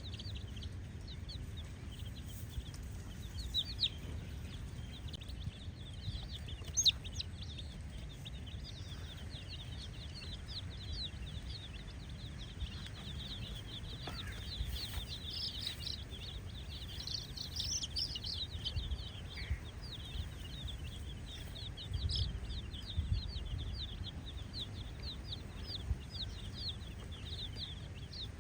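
A crowd of baby chicks peeping continuously: many short, high chirps overlapping without pause, over a low background rumble.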